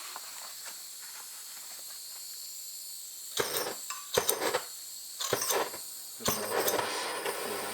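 Handheld gas torch hissing from its open valve. A few seconds in come several short, louder rushes, and from about six seconds a steadier, louder hiss as the torch is lit and burns.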